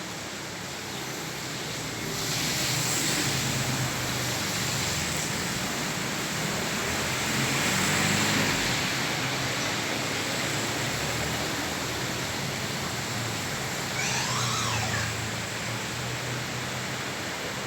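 Steady hiss of heavy rain on a flooded street, with vehicles passing through the water, the rush swelling about two seconds in and again around eight seconds. A brief wavering high-pitched sound comes about fourteen seconds in.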